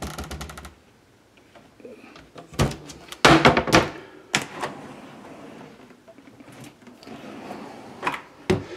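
Built-in wooden cabinet doors and drawers being opened and closed by hand. A quick run of clicks at the start, a cluster of knocks about three seconds in, another a second later, and a couple more near the end. The drawers run on soft-close slides that brake them so they don't slam.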